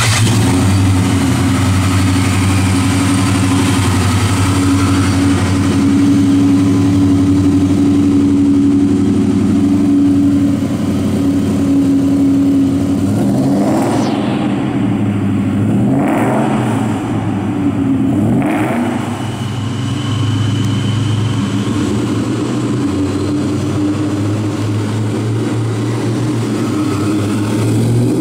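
Supercharged 5.0 L stroker V8 of a 2004 Ford Mustang Mach 1 idling steadily. About halfway through it is revved three times, roughly two seconds apart, each rev rising and falling back, then it settles to idle again.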